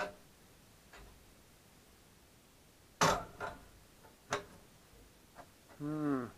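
Metal clicks and clacks as the homemade propane-tank wood stove's door latch handle and fittings are worked by hand, a few sharp clicks with the loudest cluster about three to four and a half seconds in. A short pitched creak follows near the end.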